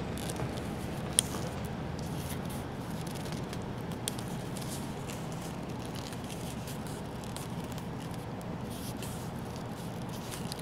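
Leather lace being worked and tightened around a PVC pipe bow handle: soft rubbing and scratching with small ticks, and one sharp click about a second in and another about four seconds in. A steady low background rumble runs underneath.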